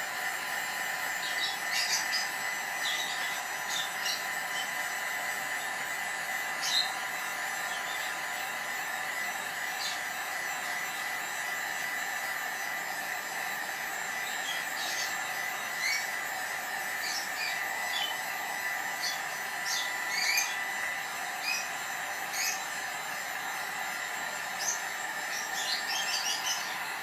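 Handheld electric heat gun running steadily, its fan whirring with a constant hum as it blows hot air to dry fresh paint. Short high bird chirps sound now and then over it.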